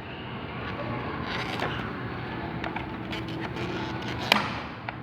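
Toy packaging being handled and pulled open: cardboard and plastic rustling and crinkling, with a sharp snap a little over four seconds in.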